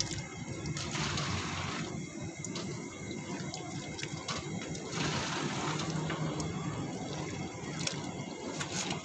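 Steaming water being ladled in a big aluminium cooking pot, with splashing pours coming every few seconds.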